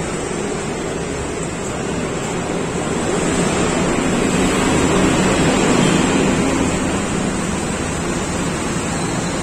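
Loud, steady rumble and rush of road traffic under an elevated road, swelling about midway and easing off again.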